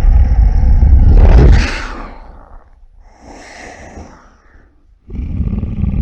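Monster roar sound effects: a loud, deep, rough roar that fades out about two seconds in, a quieter, breathier growl around the middle, then another loud roar starting near the end.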